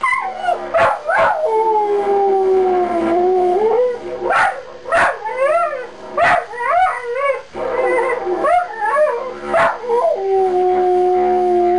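Border collie howling along to a didgeridoo: long drawn-out howls that slide slowly down in pitch, broken by short sharp yips and wavering whines, over the didgeridoo's low steady drone.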